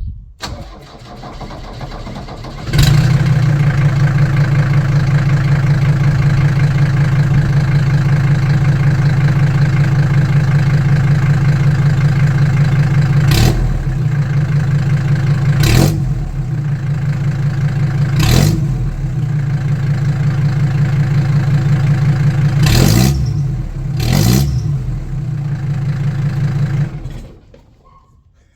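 Mercedes-Benz W123 300D's naturally aspirated five-cylinder diesel running with an open exhaust, only the first section of pipe left on. It cranks and catches about three seconds in, idles loud and steady, is revved briefly five times, then shuts off near the end.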